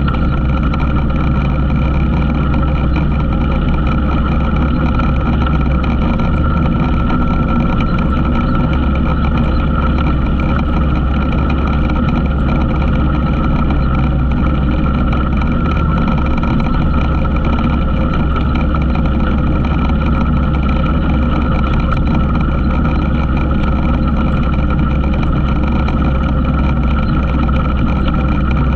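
ATV engine running at a steady speed: an unbroken drone with a steady whine over it, holding even throughout.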